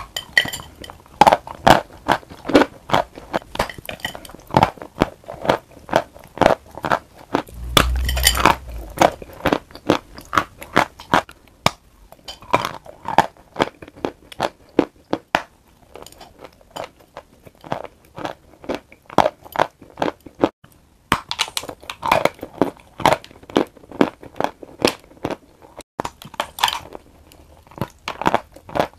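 A person biting and chewing a bar of sawn chalk coated in clay paste: a run of sharp, dry crunches, about three a second, with a few brief pauses and one heavier bite about eight seconds in.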